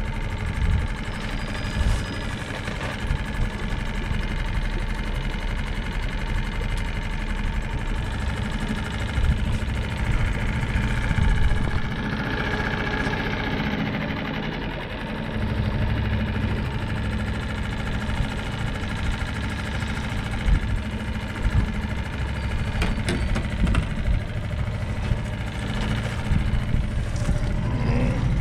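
An engine running steadily, a low drone that shifts slightly in pitch now and then.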